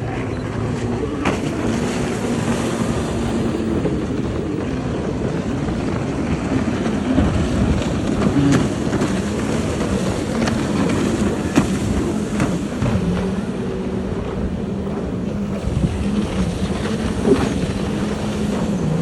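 Jet ski engines running on the water, their pitch drifting up and down as they change speed, with wind noise on the microphone and a few sharp knocks.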